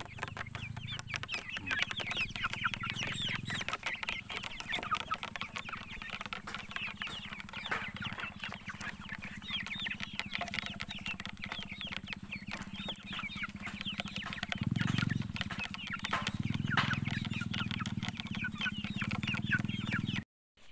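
Many hens clucking and chirping continuously as they feed, with scattered sharp taps as their beaks peck black soldier fly larvae off a plastic trough. A low rumble comes and goes underneath.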